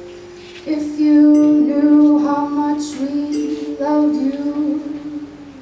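A woman singing long, sliding wordless notes over a steady held tone, after a plucked string note that rings out at the start.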